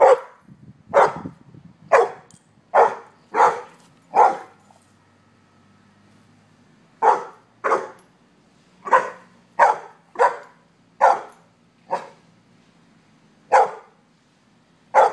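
A dog barking at another dog to invite it to play: single short barks, about one a second, with a pause of two or three seconds a few seconds in.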